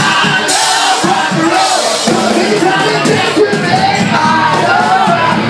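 Live band playing loud rock music on drums and electric bass, with washes of cymbals through it.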